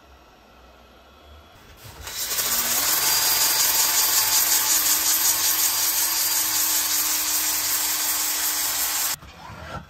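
DeWalt cordless drill spinning a rotary sanding disc against the face of an ash platter blank: a steady hissing scrub that starts about two seconds in, over a motor whine that rises as the drill spins up and then holds steady, cutting off suddenly near the end.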